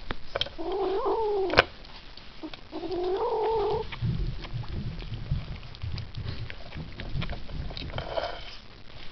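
Ragdoll kitten making two drawn-out, wavering growling yowls over its food, guarding it from other cats, with a sharp click between the calls; then lower, irregular eating noises and a fainter call near the end.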